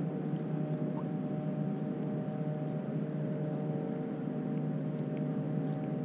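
Electric trolling motor running steadily, a constant hum with a few held tones over it.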